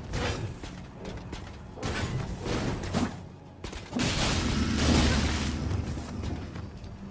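Wakizashi short sword sound effects: a series of swishes and hits, the biggest swelling up about four seconds in and fading away, with a low boom underneath.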